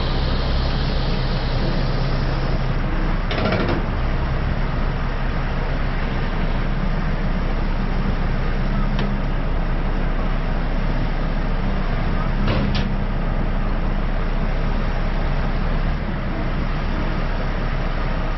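A large diesel engine running steadily, with two short bursts of noise about nine seconds apart.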